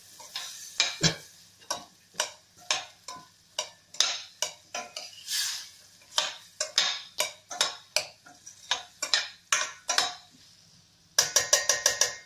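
Metal ladle stirring diced potato, carrot and peas in a stainless steel kadhai, scraping and clinking against the pan at an uneven pace, with a quick run of about eight clinks near the end.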